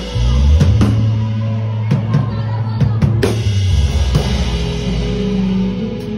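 Drum kit played live with a band: drum hits and cymbal crashes over sustained low notes.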